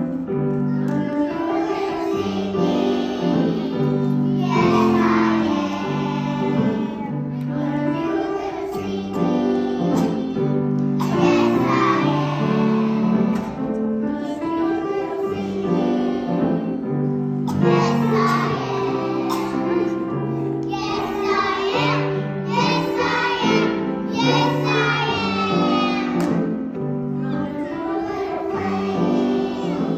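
Children singing together to a musical accompaniment, in continuous phrases over sustained notes.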